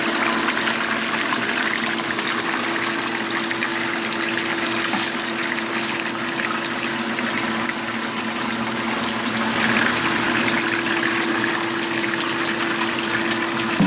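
Gold Cube gold concentrator running: its recirculating water pump hums steadily while water gushes and splashes continuously through the cube's trays.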